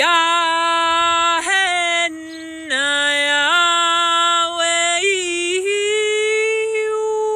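A woman singing light language, an improvised chant in wordless syllables. She holds long notes and slides between pitches, eases off briefly about two seconds in, and holds a higher note near the end.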